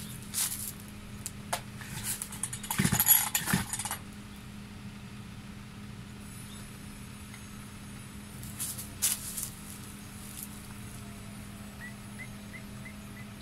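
Metallic clattering and rattling as an engine-powered multi-tool brush cutter is handled and readied for starting, loudest in the first few seconds and again briefly about nine seconds in; the engine is not running.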